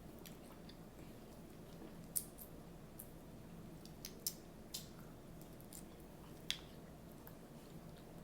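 Quiet eating sounds: a few short, sharp clicks and crackles of shrimp and crab-leg shells being cracked, peeled and chewed, over a faint steady hum.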